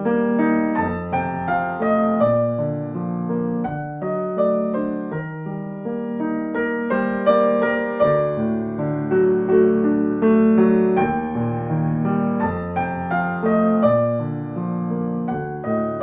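Gentle solo piano music, many notes struck and left to ring, played at a slow relaxing pace.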